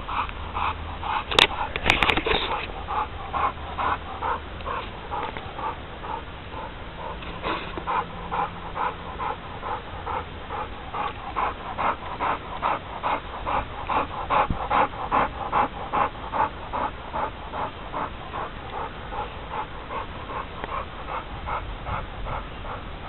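American Bulldog panting hard and fast, an even rhythm of about three breaths a second. Two sharp knocks near the start are the loudest sounds.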